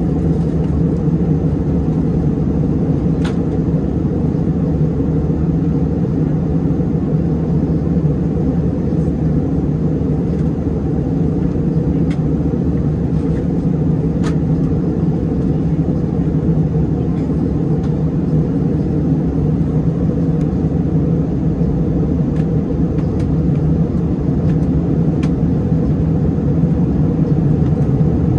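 Steady in-flight cabin noise of an Airbus A321-200: a low, even rumble of engine and airflow, with a few faint ticks scattered through it.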